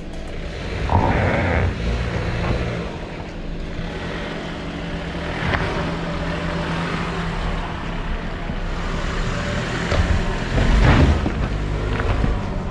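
Toyota RAV4 running under load, climbing slowly on all-wheel drive over a rocky, muddy off-road trail, with its engine note steady and occasional thumps from the tyres and suspension going over rocks, loudest near the end.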